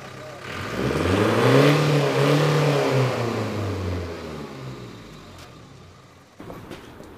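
Van engine revved once: its pitch climbs over about a second, holds high for a couple of seconds, then falls back toward idle.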